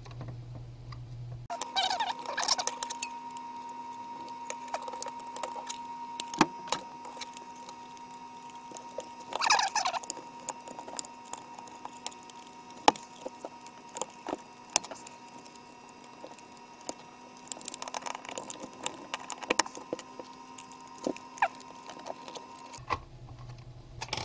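Plastic case of a Samsung SmartThings Hub V2 being handled and pried at with a plastic pry tool: scattered sharp clicks and taps, with three spells of scratchy scraping, over a faint steady hum that stops shortly before the end.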